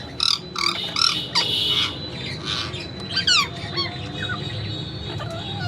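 Parrots squawking and calling: a run of short harsh squawks in the first two seconds, then quick whistled calls sliding in pitch about three seconds in, with scattered calls after.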